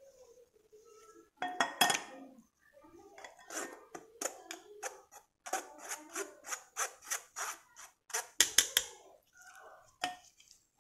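Stainless-steel mesh sieve knocking and scraping against a glass bowl while flour, baking powder and baking soda are sifted through it, in a quick run of taps at about four a second, loudest near the end.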